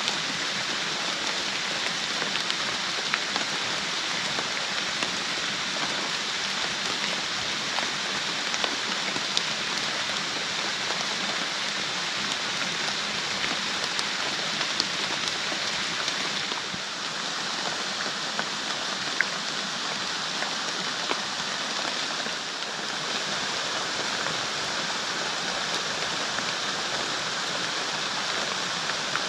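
Steady rain falling, with scattered louder drop hits.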